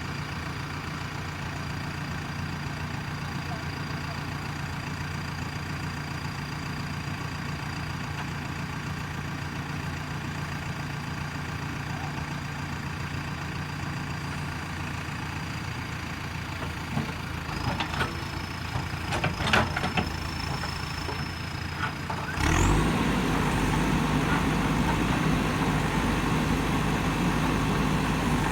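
JCB 3DX Super backhoe loader's diesel engine running steadily at idle with a faint high whine, a few knocks partway through, then revving up suddenly about three-quarters of the way in and running louder.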